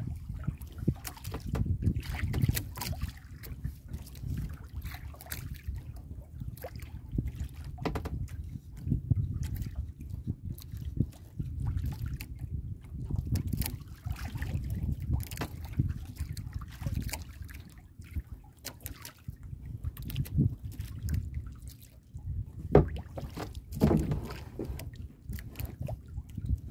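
Small waves lapping and sloshing against the hull of a small outrigger boat, with a steady low rumble and a few scattered light knocks, one sharper knock near the end.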